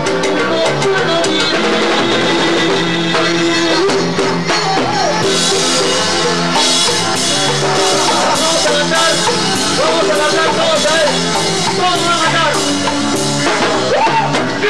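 Upbeat Latin tropical dance-band music with drum kit and percussion, the high percussion growing brighter about five seconds in.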